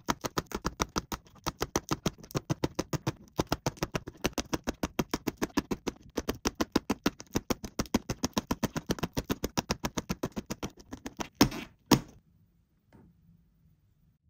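Clear plastic Lite-Brite pegs pushed one after another into a pegboard, a fast even run of clicks, about six a second. It stops about eleven seconds in, with two louder clicks just after.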